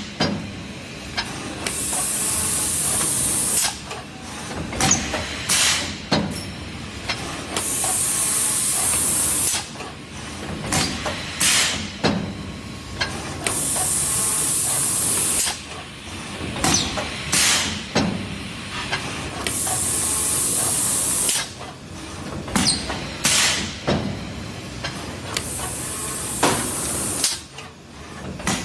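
LX76UN two-in-one plastic cup thermoforming machine with robot stacker running through its forming cycle: a long hiss of air lasting about two seconds, repeating about every six seconds, with sharp clanks and clicks of the press and stacker between.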